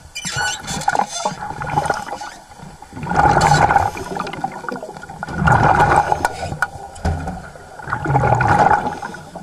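Muffled underwater churning and rushing of water and bubbles as a great white shark thrashes against a dive cage, heard through an underwater camera. It swells in three loud surges of about a second each, roughly 3, 5.5 and 8 seconds in.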